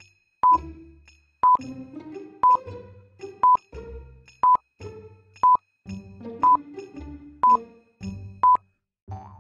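Background music with a short, high beep once every second, a countdown-timer sound effect that marks the thinking time.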